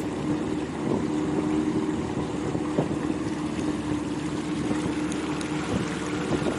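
Motorboat engine running steadily, a continuous even hum as the boat comes in on the river.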